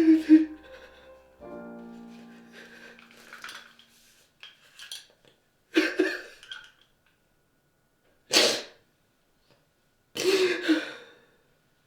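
A person's short, breathy vocal outbursts, about five of them a couple of seconds apart. A piano chord fades out over the first few seconds.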